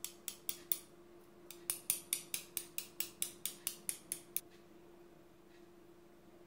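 A metal teaspoon tapping in quick sharp clicks. There are four at first, then a steady run of about a dozen at roughly four a second that stops a little over four seconds in.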